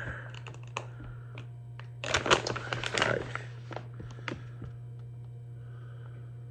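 Plastic snack bag of steak strips being handled, crinkling and rustling in a burst about two seconds in, with a few scattered small crackles, over a steady low hum.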